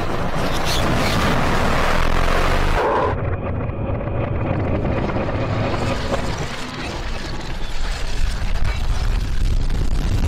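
Battle sound effects of explosions, blasts and heavy machinery played backwards, as a dense, loud rumble. About three seconds in the sound turns muffled as the treble drops away, leaving a deep rumble.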